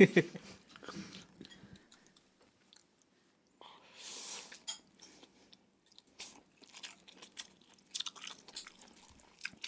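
Close-miked eating of instant noodles: small wet chewing and mouth clicks, with a longer noisy sound about four seconds in as a forkful of noodles goes into the mouth.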